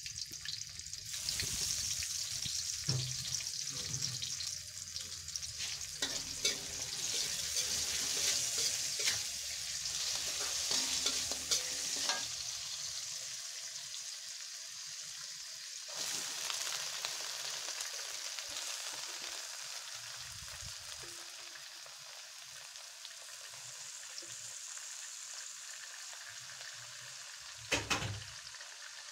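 Sliced shallots, garlic and red chilies sizzling in hot oil in a steel wok, with a metal spatula scraping and clicking against the wok as they are stirred. Near the end comes one brief loud knock as a heap of water spinach goes into the wok.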